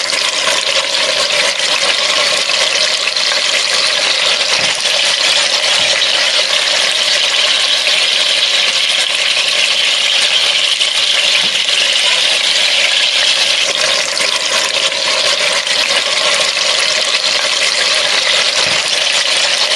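Beef short ribs sizzling steadily as they sear in hot oil in an enameled Dutch oven, with a few faint clicks of metal tongs turning them. The sizzle is the browning stage of a braise, each side seared until golden brown.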